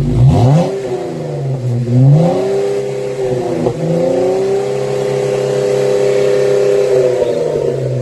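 A car engine revving: the pitch climbs and falls twice in the first two or three seconds, dips briefly near the middle, then holds a steady higher run and cuts off at the end.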